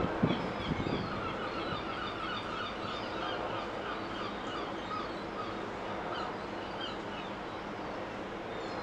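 A flock of birds giving many short, quick calls, thinning out about seven seconds in, over the steady low hum of a passing container ship. A single knock sounds right at the start.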